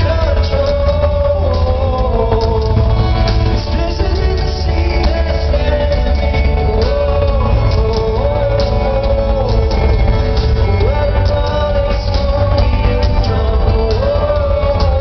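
Live rock band performance with a man singing the melody over heavy bass and drums.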